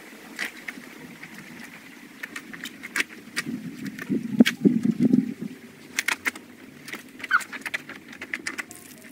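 Wet wash mitt scrubbing a trike's paint and chrome, with wet rubbing and squelching and scattered drips and splashes, loudest around the middle. Near the end come wet splashing ticks as the mitt goes into a bucket of wash water.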